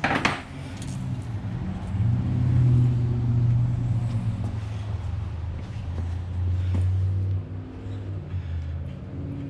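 A low, steady engine drone, such as a motor vehicle running nearby, which swells about two seconds in and shifts in pitch near the end. A sharp click comes right at the start.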